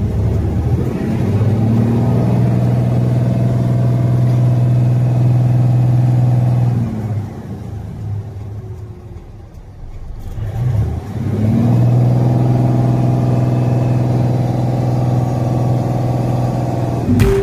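Mitsubishi Fuso Super Great's 6M70 inline-six diesel engine, heard from inside the cab, revved up and held steady at raised revs. It drops back toward idle about seven seconds in, revs up and holds again a few seconds later, and falls off near the end.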